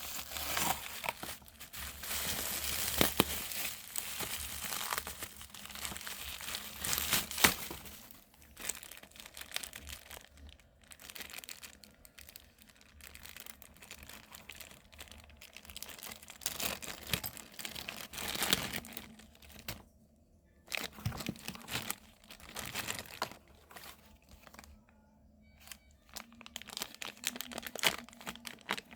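Parcel packaging being handled and torn open: irregular crinkling and tearing of wrapping, in bursts with a few sharp clicks, busiest in the first several seconds, then in shorter spells with pauses between.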